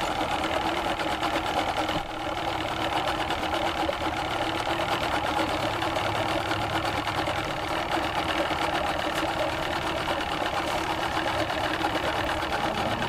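Small boat's outboard motor idling steadily with a fast, even mechanical chatter.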